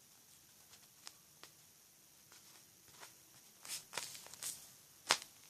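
Faint handling of sticky tape being wrapped around a squishy toy: a few light clicks, short rasps about four seconds in, and a sharp click near the end.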